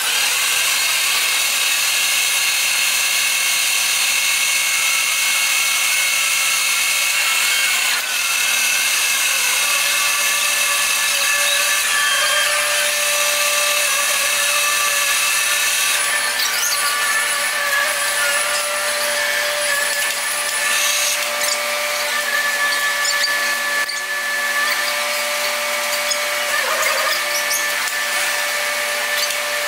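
Locomotive shop noise played back sped up: a steady high-pitched whine and hiss with several held tones, and squeaky, warbling chatter over it.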